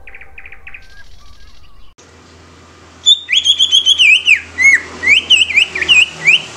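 Male cucak ijo (green leafbird) singing loud, clear whistled phrases of quick notes slurring up and down, starting about three seconds in, after a few faint chirps.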